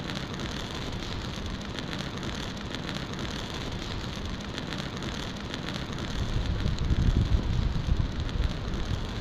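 Newly lit campfire of dry sticks and branches crackling, with many small snaps and pops over a steady hiss as the fire takes hold. A low rumble builds about six seconds in.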